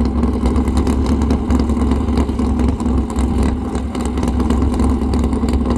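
Wind buffeting the microphone, a steady low rumble, over a steady mechanical hum.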